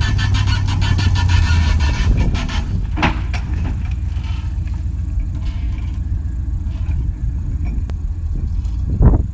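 Pickup truck engine running under load while the truck moves with a heavy mesquite log hanging from its A-frame hoist. A fast, regular clatter over the engine stops after about two and a half seconds, leaving a steady low rumble. There are two brief thumps, one about three seconds in and one near the end.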